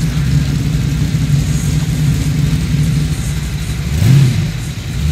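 Car engines idling with a low, steady rumble as a queue of cars creeps forward, and one engine given a short rev about four seconds in.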